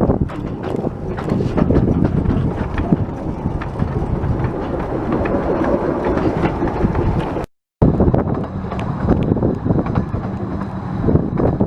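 Miniature-gauge steam train running past, its wheels clicking over the rail joints amid a dense rumble, with wind on the microphone. The sound breaks off completely for a moment about two-thirds of the way through.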